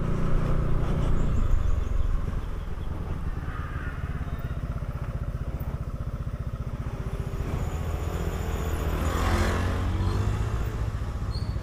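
Motorcycle engine running while riding, a steady low pulsing beat, its note rising for a moment about nine seconds in.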